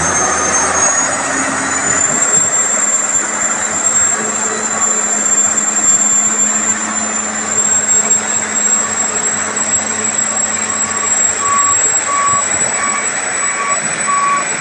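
Heavy machinery running loud and steady, with a high whine over the engine noise. About two-thirds of the way in, a reversing alarm starts beeping regularly, about three beeps every two seconds.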